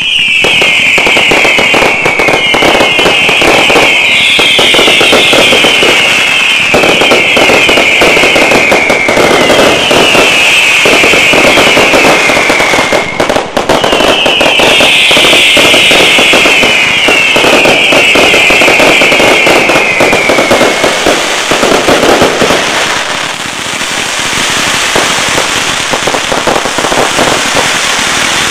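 Fireworks display: a dense, continuous barrage of reports and crackling. Over it comes a string of overlapping whistles, each falling in pitch. The whistles pause briefly near the middle and stop about two-thirds of the way through, while the crackling barrage carries on.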